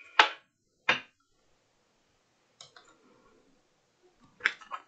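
A deck of tarot cards being shuffled by hand: short, sharp card clicks and snaps, two in the first second, a faint rustle around the middle and a quick cluster near the end.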